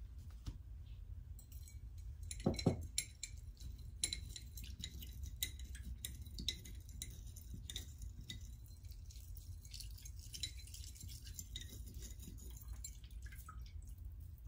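Small metal chains clinking and rattling in a container of water as they are rinsed, with a dull knock about two and a half seconds in.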